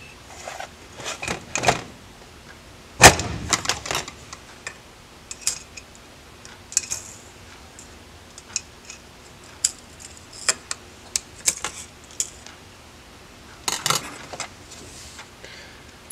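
Small metal clicks and clinks of hand tools and aluminium carburetor parts being handled while an Edelbrock 1406 four-barrel carburetor is taken apart on a metal bench. There is a loud clunk about three seconds in and a short flurry of clinks near the end.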